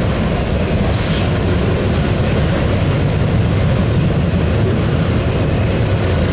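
Double-stack intermodal container train rolling past, its well cars and wheels making a steady low rumble, with a brief hiss about a second in.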